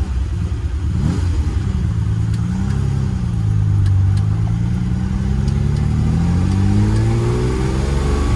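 Ferrari 330 GT 2+2's V12 engine pulling: the revs settle to their lowest about halfway through, then climb steadily through the last few seconds as the car accelerates. The engine has just had a tune-up and a throttle-cable adjustment.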